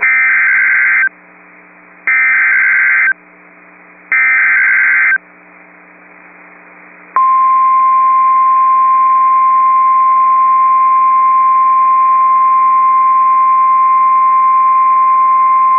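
Three one-second bursts of SAME digital header data, each an electronic warble, about two seconds apart with radio hiss between. About seven seconds in, the single steady 1050 Hz warning alarm tone of NOAA Weather Radio starts, the signal that a weather warning broadcast follows.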